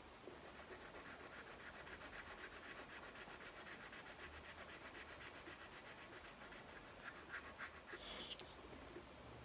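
Faint scratching of a coloured pencil on paper in quick, short, evenly repeated strokes as a small area is filled in.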